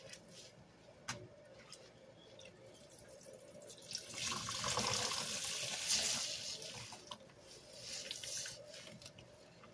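Soap-laden sponge squeezed by hand in a basin of thick suds: wet squelching and foam crackle, loudest for about three seconds from four seconds in, with a shorter squeeze near the end.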